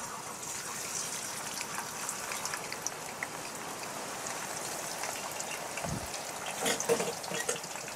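Thin slices of green banana sizzling and crackling in hot cooking oil, the sizzle jumping up as they go in, with a low bump about six seconds in and louder crackles soon after.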